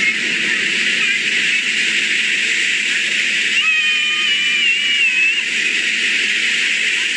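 Floodwater in a swollen river rushing with a loud, steady roar. About halfway through, a brief wavering high call sounds over it.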